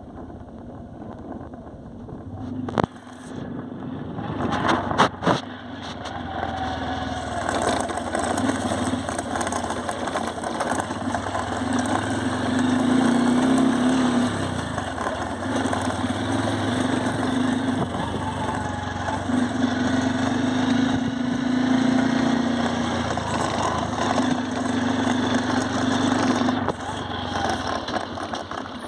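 Honda Livo's 110 cc single-cylinder four-stroke engine running as the motorcycle rides a rough dirt track, its note swelling and dropping several times with the throttle. A few sharp knocks about three and five seconds in.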